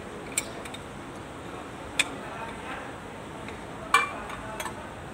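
A few sharp metallic clinks from circlip pliers, a snap ring and a steel-backed brake disc being worked on a tractor's brake hub; the loudest, about four seconds in, rings briefly.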